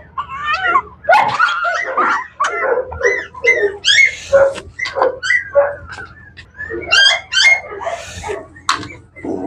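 A month-old Griffon puppy yelping and whimpering in a rapid string of short, high-pitched cries as it is given a vaccine injection.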